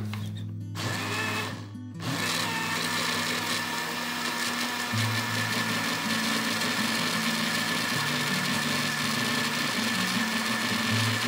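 Electric countertop blender running on a liquid mix of eggs, sugar and oil, a steady whir with a constant whine. It runs briefly, stops for a moment, then starts again and runs steadily.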